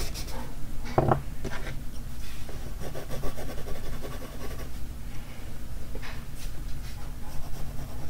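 Graphite pencil scratching and rubbing on drawing paper in short scattered strokes, with a thump about a second in.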